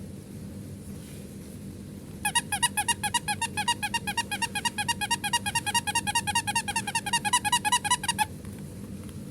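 The squeaker in a soft baby bath book squeezed over and over, giving a rapid run of short high squeaks, about five a second for some six seconds, that stops abruptly.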